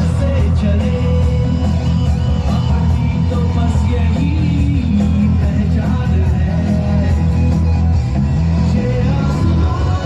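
Loud music with a singing voice over a heavy, steady bass.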